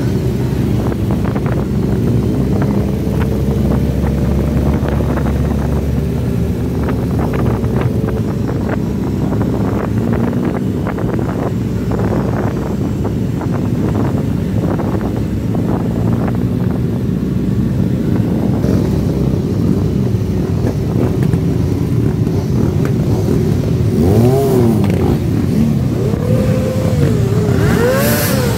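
Many motorcycle engines running together in a group ride, heard from one of the moving bikes. In the last few seconds engines rev up and down several times.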